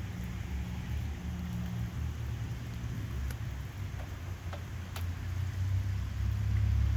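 Distant thunder rumbling low, swelling louder near the end, with a couple of sharp clicks about halfway through.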